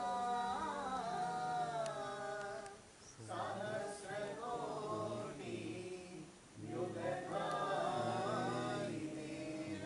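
Devotional chant sung slowly in long held, gliding phrases, with two short breaks about three and six and a half seconds in.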